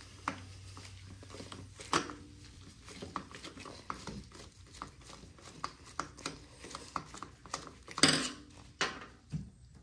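Scattered small metal clicks and clinks of a tool and carburetor parts being handled while the main jet is taken out of a snowblower carburetor. A few louder clinks come about 2 seconds in and again near the end.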